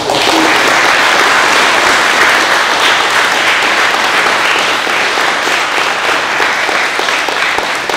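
A group of people applauding, a steady, dense clapping of many hands.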